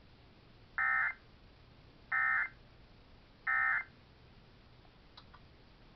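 Emergency Alert System End-of-Message data signal from a DASDEC encoder/decoder: three short, identical bursts of two-tone digital squawk, about a second and a half apart. It marks the close of the Required Weekly Test alert.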